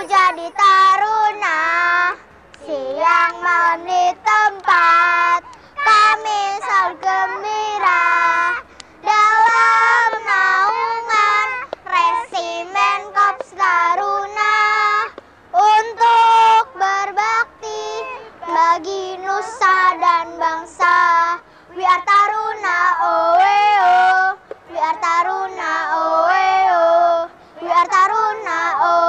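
A group of young children singing a song together, voices held on long sung notes with short breaks between phrases.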